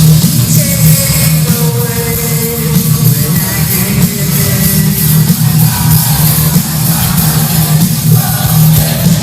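A live rock band playing loud through a concert PA, with guitar and some singing over a heavy, dominant bass.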